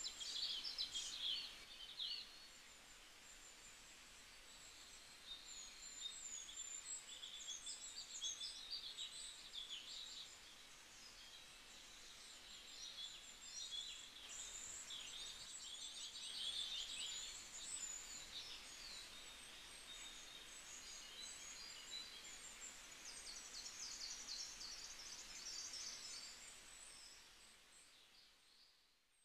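Many birds chirping and twittering in quick, high, overlapping calls and trills. The sound fades out near the end.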